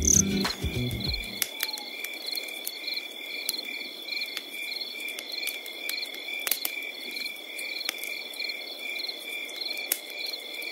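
Crickets chirping outdoors: regular high chirps about twice a second over a steady high insect trill, with a few faint clicks. Music in the low range cuts off about a second in.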